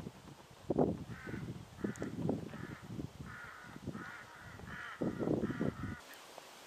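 A crow-like corvid calling, a string of about eight short calls, roughly two a second, that stop about six seconds in. Irregular low rumbles run underneath.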